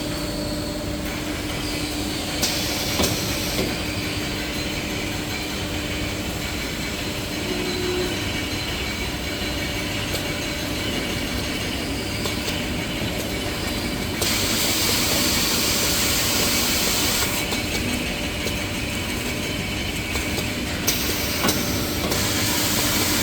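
Automatic maxi roll paper band saw cutting machine running with a steady hum, with louder spells of high hissing a few seconds long, the longest about fourteen seconds in and another near the end.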